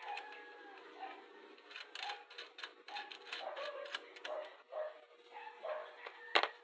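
A dog barking over and over, short high yelps about twice a second, with light clicks and one sharp knock near the end.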